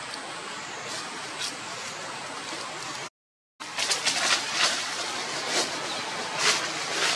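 Steady outdoor background noise, cut off by a short dropout about three seconds in, then a louder run of sharp crackles and rustles of dry leaf litter.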